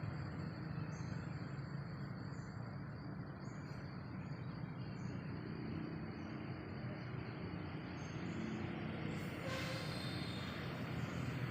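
Outdoor ambience: a steady low rumble under a constant high insect drone, with short high insect or bird chirps about once a second. There is a brief rustle about nine and a half seconds in.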